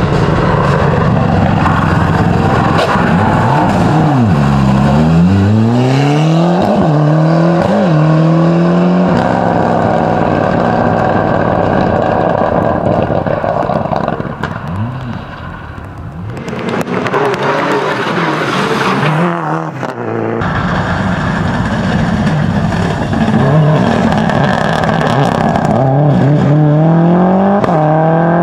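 Rally car engines at full throttle, revving up through gear changes and dropping as they lift off for a turn, first one car, then another after a cut. The first is a Ford Escort RS Cosworth, the second a Subaru Impreza.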